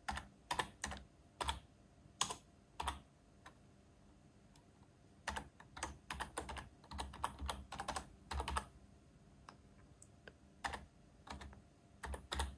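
Quiet keystrokes on a computer keyboard, typed in uneven runs. There are a few separate strokes, a pause of about two seconds, then a quicker run of about three seconds and a few scattered strokes near the end.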